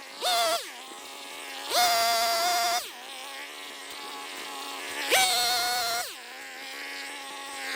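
Small two-stroke chainsaw revved three times, each rev lasting about half a second to a second, dropping back to a steady idle buzz in between.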